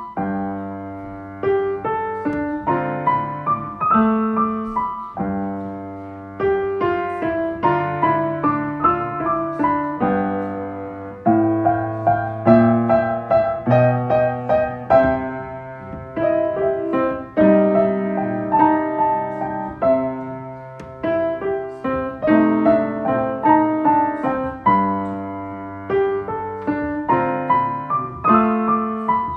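Background music: a piano tune in a bluesy style, with struck notes and chords ringing out one after another.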